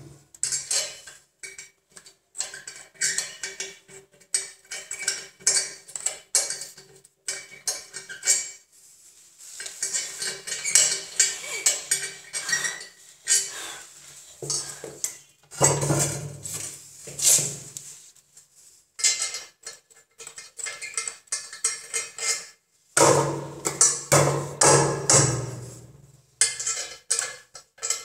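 Hard objects clinking and knocking in quick, irregular succession as a ceramic toilet and tools are handled on a tiled floor. The clatter gets louder about halfway through and again near the end.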